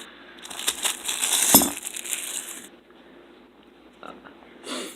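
Packaging rustling and crinkling as a butterfly knife is taken out, with small metallic clicks and clinks, busiest in the first half; a short rustle near the end.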